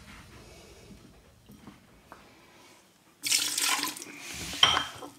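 Water, loosened with the dough starter, poured from a glass jug into an empty stainless steel mixer bowl. It splashes in two short pours, the first about three seconds in and the second a second later.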